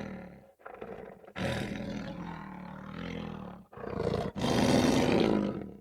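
Lion roaring in a series of separate calls with short breaks between them, the last and loudest coming in the second half.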